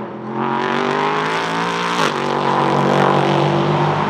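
Ligier JS P320 LMP3 race car's Nissan VK56 5.6-litre V8 accelerating hard, its pitch climbing, breaking off briefly about two seconds in, then climbing again.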